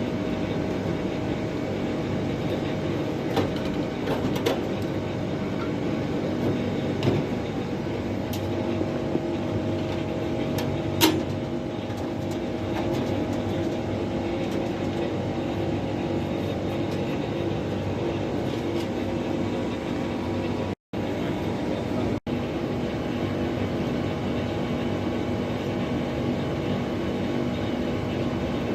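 Carrier 60,000 BTU air conditioner running with a steady mechanical hum, with a few light clicks and taps in the first half. The sound cuts out briefly twice about two-thirds of the way through.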